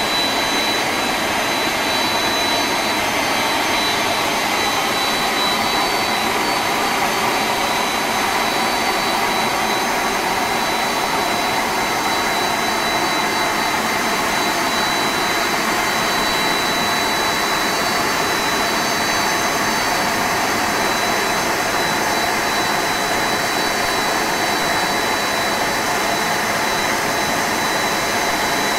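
Boeing 747-400 freighter's four turbofan engines running at low power as it taxis past, close by. A steady rushing hiss with a high, steady whine on top.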